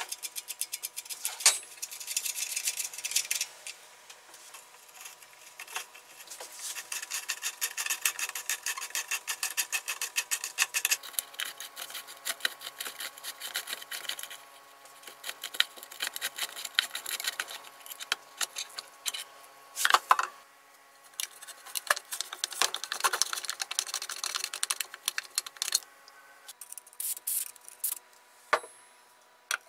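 Rapid clicking, scraping and light knocking of hand tools and small metal parts being handled during disassembly of a portable band saw, with a few sharper knocks about a second and a half in, around twenty seconds in and near the end.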